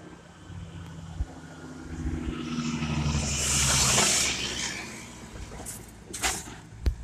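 A car passing close by on the road, its engine and tyre noise swelling to a peak about four seconds in and then fading away.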